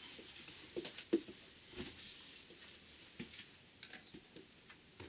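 Faint handling noise: scattered light clicks and knocks, with a soft rustle in the first couple of seconds, as small objects are moved about on a workbench.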